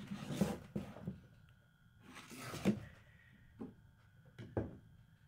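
Hard plastic camera gear being handled on a tabletop: several knocks and clunks as a hand moves the camera batteries. The loudest comes about half a second in and another midway, with two lighter knocks near the end.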